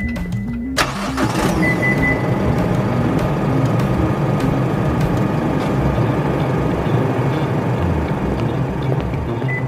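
Isuzu D-Max's 3.0-litre 4JJ3-TCX turbo diesel started by remote start: it fires about a second in, then idles steadily. A short high beep sounds at the start, and another about two seconds in.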